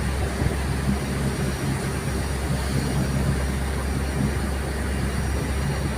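Boat engine running steadily, a low continuous hum.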